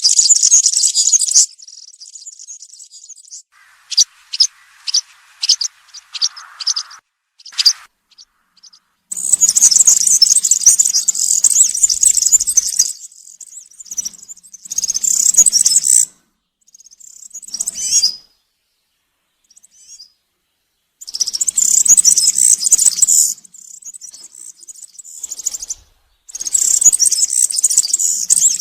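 European serin singing: fast, high-pitched jingling song phrases of a few seconds each, separated by pauses, with a run of short separate notes early on.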